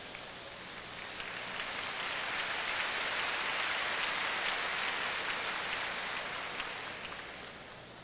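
Arena crowd applauding, a dense patter of clapping that swells over the first few seconds and then slowly dies away.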